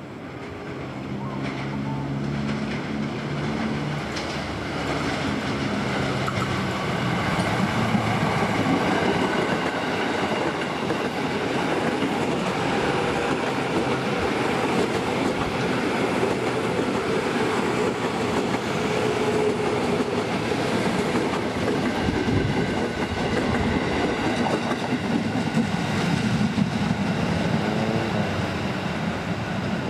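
Electric commuter trains running past on the double track: the noise of wheels on rail builds over the first several seconds, then stays loud with a clickety-clack from the wheels over the rails.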